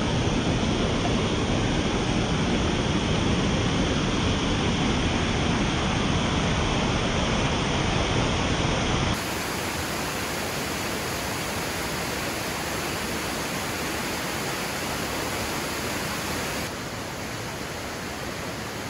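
Waterfall pouring into a rock pool: a steady rush of falling water. It drops in level and loses some of its low end about nine seconds in, and drops again near the end.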